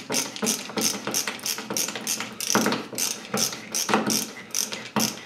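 Ratcheting screwdriver clicking steadily, about three clicks a second, as it drives the bottom mounting screw of a plastic old-work electrical box. The screw is drawing the box's flip-up tab tight against the back of the drywall.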